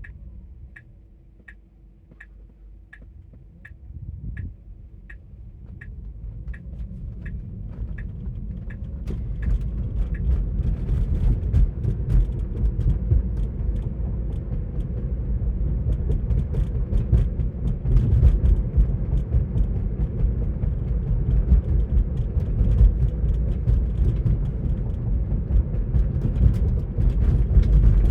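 Road and tyre noise inside an electric Tesla Model 3's cabin, a low rumble that grows steadily louder as the car gathers speed. At first a turn signal ticks about one and a half times a second; it stops about nine seconds in.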